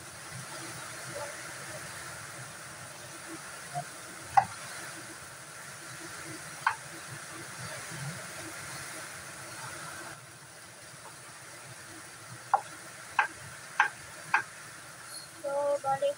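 Kitchen knife cutting potatoes on a round wooden chopping board: a few single sharp taps, then four taps about half a second apart near the end, over a steady background hiss.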